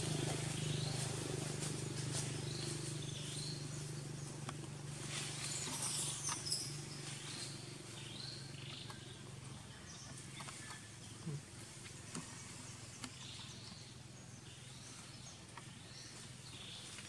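Outdoor forest ambience: scattered short, high animal chirps or squeaks, with a patch of rustling and snapping about five to seven seconds in, over a low steady hum that fades away during the first half.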